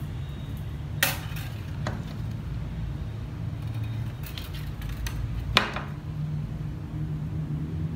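Light, sharp clinks and taps of bonsai wire being handled around a glass pot: two louder clicks, about a second in and about five and a half seconds in, with a few fainter ticks between, over a steady low background rumble.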